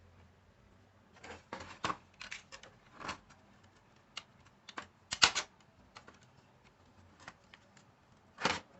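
Small hard objects being handled: irregular clicks and taps with a few brief scrapes, the loudest a quick cluster of sharp clicks about five seconds in and a longer scrape near the end.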